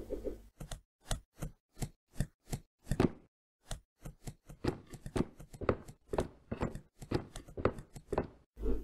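Cartoon sound effects: a quick, uneven string of short knocks and taps, a few each second, with dead silence between them.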